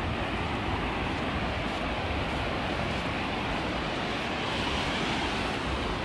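Ocean surf breaking and washing up the beach in a steady rush, swelling a little about five seconds in, with wind buffeting the microphone.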